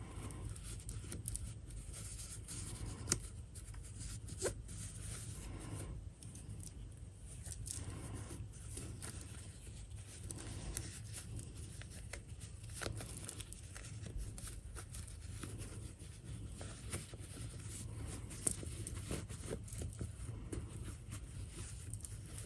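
Faint rustling and rubbing of fabric as a sewn cloth doll body is pulled through its opening and turned right side out by hand, with a few light ticks along the way.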